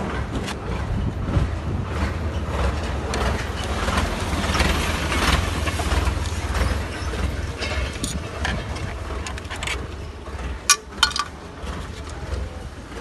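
A motor vehicle engine running with a steady low rumble, with two sharp knocks close together about eleven seconds in.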